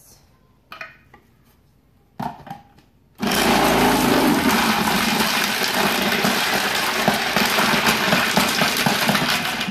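Electric food processor starting about three seconds in and running steadily at full speed, shredding bars of Fels-Naptha laundry soap pushed down its feed chute. A few light knocks of the soap chunks and pusher come before the motor starts.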